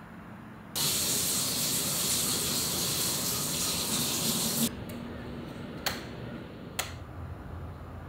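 A steady hiss, strongest in the high range, for about four seconds, cutting off suddenly. Then two sharp clicks just under a second apart.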